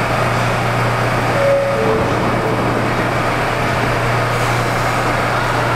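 Bombardier R179 subway train standing at the platform with its doors closed, its air conditioning and onboard equipment humming steadily.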